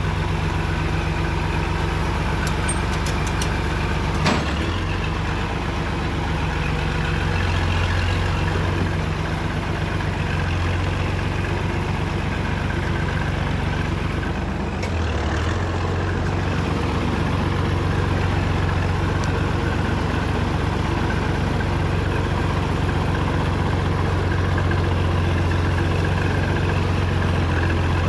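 Farm tractor engine running steadily while the tractor is driven, with one short knock about four seconds in.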